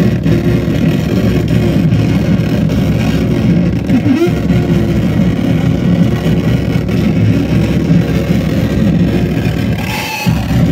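Live harsh noise music set played loud through a PA: a dense, distorted low rumble with faint wavering tones over it, briefly cutting out about four seconds in and again near the end.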